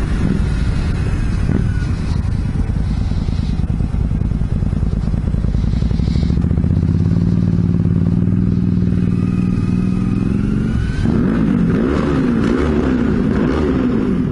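Motorcycle engines under way, the engine note climbing slowly. About eleven seconds in, a motorcycle engine is revved hard several times in quick succession, each rev rising and falling: rev bombs.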